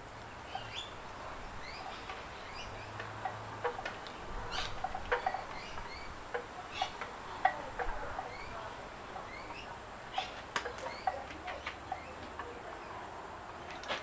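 Small birds chirping repeatedly in short rising notes, with a few sharp clicks and knocks from parts being handled as the mirror screw is driven into the handlebar.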